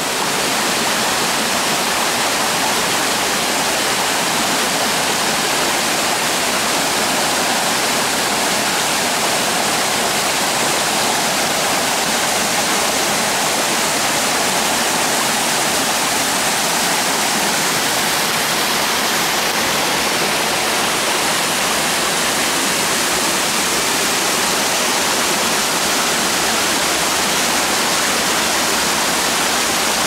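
Small forest waterfall and rocky stream cascading over boulders: a steady, even rush of falling and splashing water.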